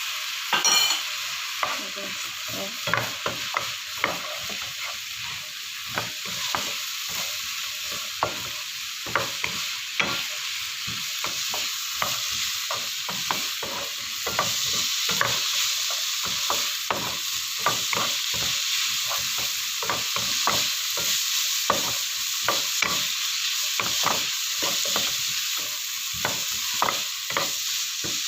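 Vegetables sizzling in a hot pan as they are stir-fried, with a spatula clicking and scraping against the pan many times, including a few sharper knocks about a second in.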